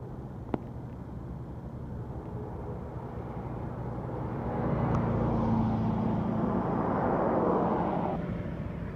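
A road vehicle passing on the street: its engine and tyre noise build from about four seconds in, are loudest for a few seconds and then fade away near the end.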